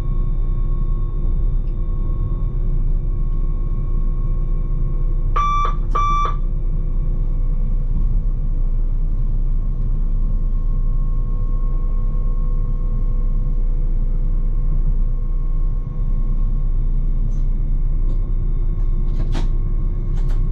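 Electric train running, heard from the driver's cab: a steady low rumble of wheels on rail with a faint steady electric whine. Two short electronic beeps sound in the cab about five seconds in, and there are a couple of sharp clicks near the end.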